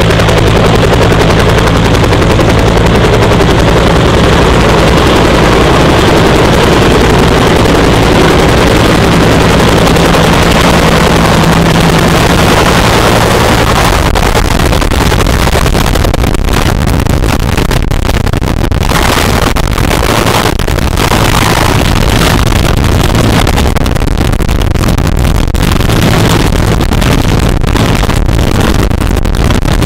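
Bell UH-1 Huey helicopter coming in low, hovering and setting down on a pad. Its two-bladed main rotor beats with a fast, heavy thumping over a steady drone.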